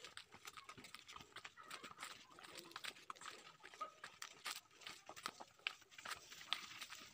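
Faint, irregular footsteps on a dirt path, with light knocks and rattles from plastic tubs and buckets being carried.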